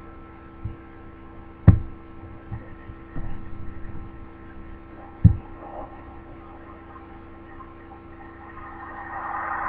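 Steady electrical hum with two sharp knocks, about two seconds in and again about five seconds in, plus a few softer bumps and a swell of rustling near the end.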